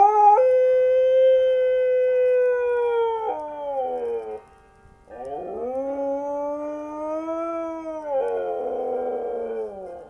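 A dog howling: one long howl that holds steady and then slides down in pitch, a brief break, then a second long howl that wavers and falls away near the end.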